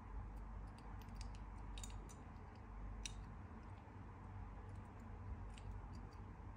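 A few faint, scattered clicks and taps as a small die-cast toy car is turned over in the fingers, over a steady low hum.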